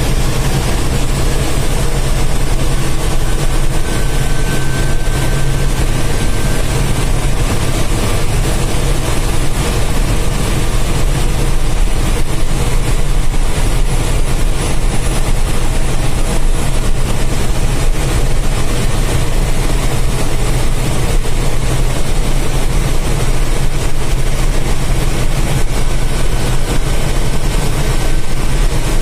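BharatBenz 1623 bus's 230 hp diesel engine running steadily at cruising speed, heard inside the cab as a deep, even hum mixed with road noise.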